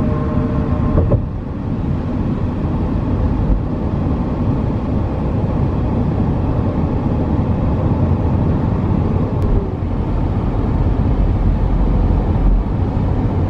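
Car travelling at highway speed, heard from inside the cabin: a steady rumble of road and engine noise.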